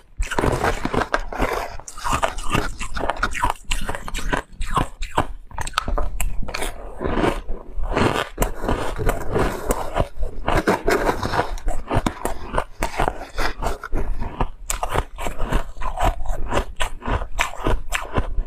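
Refrozen white ice being bitten and chewed: a dense, irregular crunching and crackling, with a metal spoon scraping into the ice now and then.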